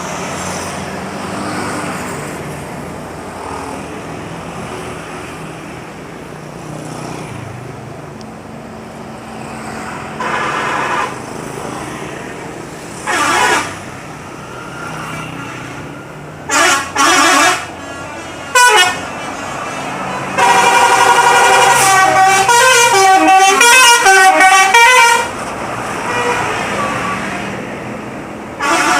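Indonesian bus telolet horns over road traffic and engine noise. From about ten seconds in come several short horn blasts. About twenty seconds in comes a loud melodic telolet tune of stepping notes, lasting about five seconds.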